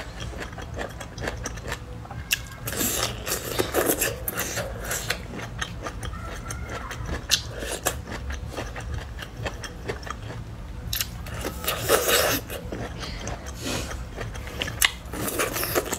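Crunchy biting and chewing of roasted bamboo shoots, with the scrape and crackle of the charred husks being peeled. It is a dense run of crunches and clicks, loudest about a quarter of the way in and again about three quarters through.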